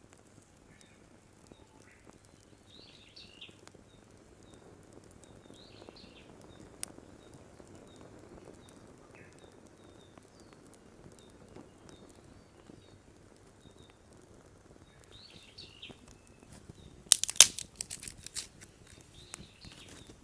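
Small birds calling now and then with short chirps over a quiet outdoor background. A quick burst of sharp crackling and snapping near the end is the loudest sound.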